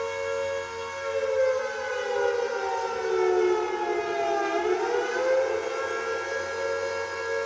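Air raid siren wailing: it holds a steady pitch, sinks lower over a few seconds from about a second in, then climbs back up and holds again.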